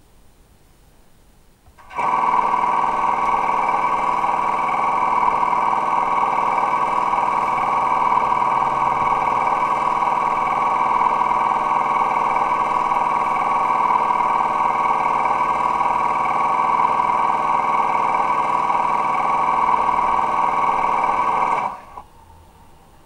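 Steady, buzzy electric locomotive hum at one pitch from the DCC sound decoder and speaker of an OO-gauge Accurascale Class 92 model. It starts abruptly about two seconds in and cuts off just before the end.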